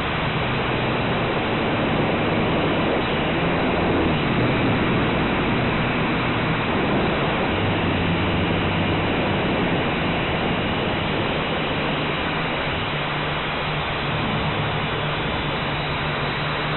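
Blade 180QX quadcopter in flight, heard from its onboard camera: a steady rush of propeller wash and wind with a low motor hum that shifts in pitch several times as the throttle changes.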